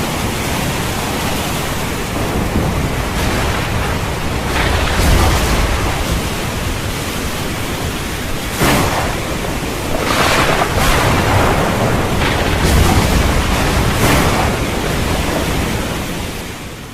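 Thunderstorm: heavy rain over a low, rolling rumble of thunder, with sharp cracks of thunder about 5 and 9 seconds in and a cluster of them between about 10 and 14 seconds. It fades out at the end.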